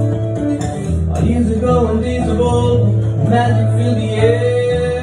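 Acoustic guitar playing an instrumental passage, chords ringing over sustained low bass notes that change every second or two.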